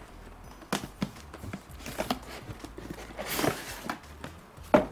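Cardboard retail box being opened and handled: a series of light knocks and scrapes of cardboard, with a brief rustle about three and a half seconds in and a sharper knock near the end.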